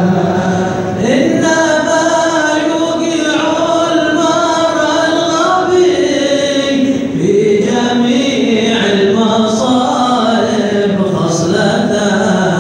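A group of men chanting an Arabic qasidah together without instruments, drawing the words out in long held notes that glide up and down.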